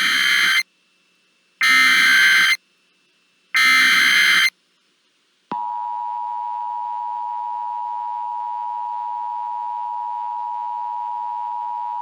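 Emergency Alert System tones: three loud buzzing bursts of SAME header data, each about a second long with a second's gap between them. About five seconds in, the steady two-tone EAS attention signal starts and holds.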